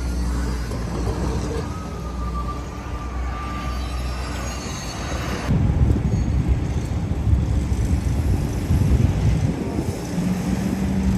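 Street traffic going by. A steady low hum runs through the first half; after a cut, wind buffets the microphone with a gusty low rumble.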